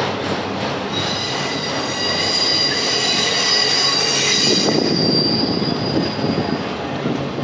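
Autorack freight cars rolling past, their steel wheels rumbling on the rail. A high-pitched squeal with several tones comes in about a second in and dies away near the end.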